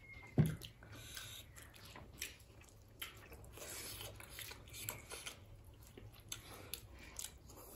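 Close-miked eating: soft chewing and mouth smacks with scattered short clicks, and one low thump about half a second in.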